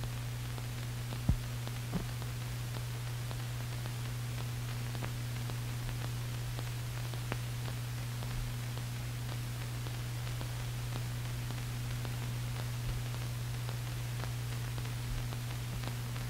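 Steady low hum with an even background hiss: the noise floor of an old film soundtrack. A sharp click comes about a second in, followed by a weaker one shortly after and a faint tick near the middle.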